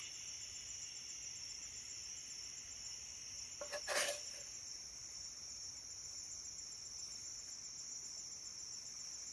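Steady high-pitched insect chorus, with a short rustle about four seconds in.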